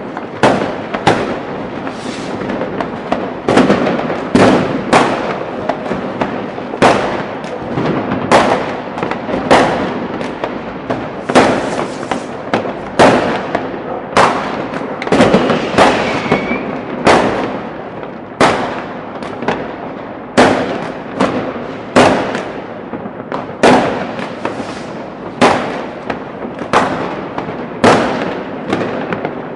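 New Year's Eve fireworks and firecrackers going off all around: sharp bangs roughly once a second, each echoing away, over a constant background of crackling and distant explosions.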